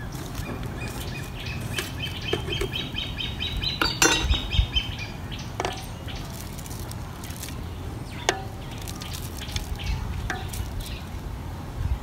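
A metal spoon clinking against a plate and a metal cooking pot as seasonings are spooned in: a handful of separate clinks. A bird sings a fast trill of repeated high notes from about a second in to about four seconds.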